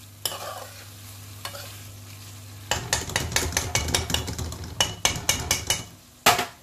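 Metal spoon stirring a pan of vegetables in a steel kadai, clinking and scraping against the pan in quick strokes from about a third of the way in, over a gentle sizzle and a steady low hum. One sharp clack near the end is the loudest sound.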